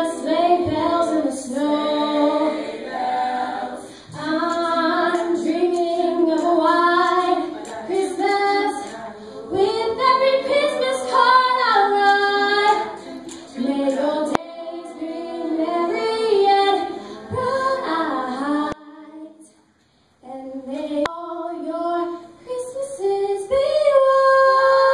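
Choir singing a cappella, voices moving in chords, with a brief pause about twenty seconds in, then a held chord near the end.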